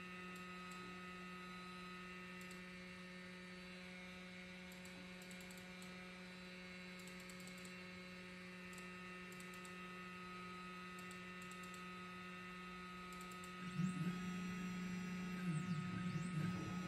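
Steady low electrical hum from a powered-up 3018 desktop CNC router, with a few faint clicks. About fourteen seconds in, its stepper motors start driving the spindle carriage along the gantry, a louder, wavering motor whir with gliding high tones.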